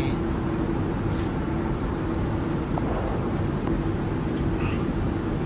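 Airliner cabin noise in flight: an even roar of engines and airflow with a steady low hum.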